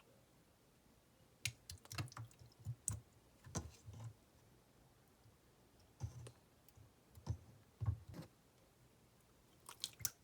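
Clear slime being squeezed and pressed by hand, giving clusters of small sticky clicks and pops, with pauses between the handfuls.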